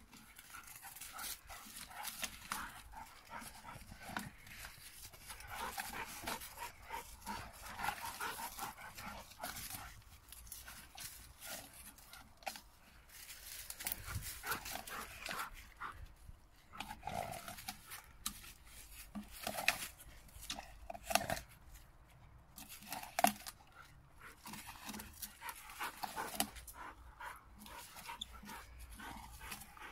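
Three dogs, one an American Bulldog x Lurcher puppy, play-fighting in leaf litter: scuffling, panting and a few short vocal yips or growls.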